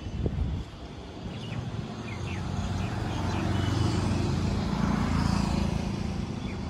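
A motor vehicle passing on the street: its rumble grows louder to a peak about four to five seconds in, then eases off.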